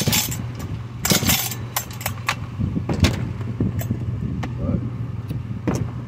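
Recoil starter cord of an old Jonsered chainsaw pulled several times with the throttle held open, each pull a short rasping rattle, over a steady low hum.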